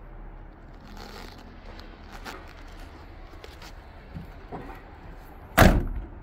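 The cab door of a 2004 Chevrolet C4500 truck slammed shut once, a single loud bang about five and a half seconds in. A few faint knocks and clicks come before it.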